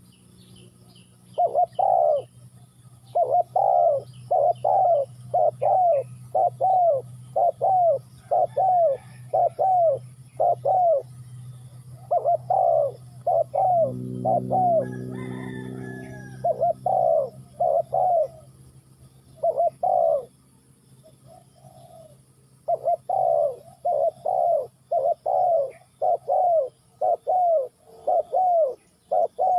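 Spotted doves cooing: a long run of short, evenly spaced notes, about one and a half a second, broken by a pause a little past the middle. A low steady hum runs underneath.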